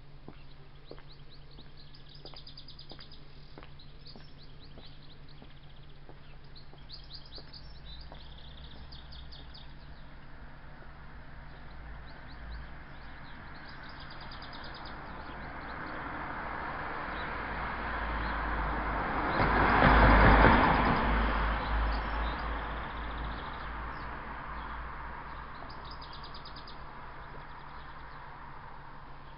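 A vehicle passing, its noise swelling slowly to a peak about two-thirds of the way through and then fading, with small birds chirping on and off throughout.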